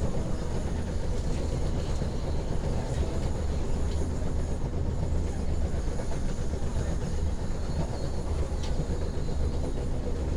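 Moving passenger train heard from inside the carriage: a steady low rumble of wheels on rails, with a few faint clicks.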